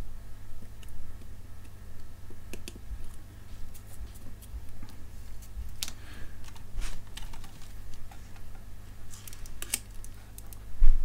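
Small scattered clicks and taps of hands handling an LCD panel and its circuit board, plugging the display back in and clipping on crocodile-clip test leads. A steady low hum runs underneath.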